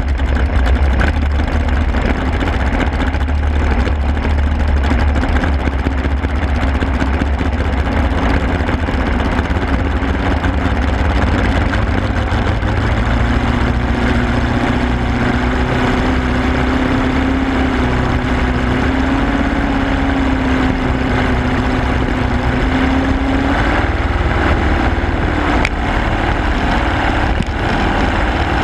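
Small racing garvey's motor running hard under way, with a steady rush of water and wind over it. In the middle its note climbs slowly as the boat gathers speed, then levels off and fades back into the rush.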